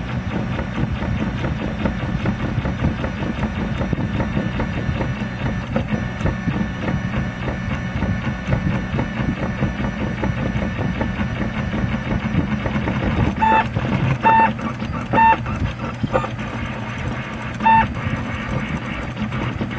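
MendelMax 2 RepRap 3D printer running a print at 60–90 mm/s: the stepper motors and moving carriage make a steady, busy whirring and buzzing. In the second half there are a few short, clear pitched notes.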